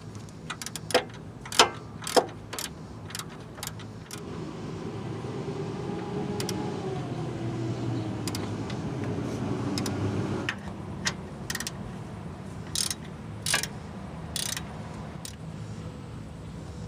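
Sharp metallic clicks and clanks of hand tools on steel suspension parts during reassembly. A steady mechanical hum with several pitches runs for about six seconds in the middle and cuts off suddenly.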